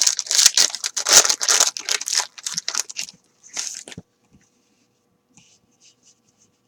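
Trading-card pack wrapper being torn open and crinkled: a quick run of tearing and rustling for about three seconds, then one more crinkle and a soft knock.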